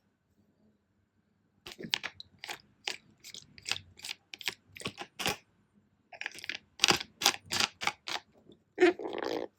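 Plastic water bottle cap being twisted and handled: after a short silence, runs of sharp clicks and crackles, a few a second, with a brief pause, then a longer, denser crackle near the end.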